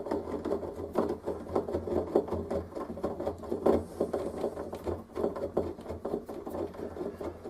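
Phillips screwdriver turning a long screw through a door handle assembly into the handle on the other side of the door. The sound is a run of small, irregular metal clicks and rattles.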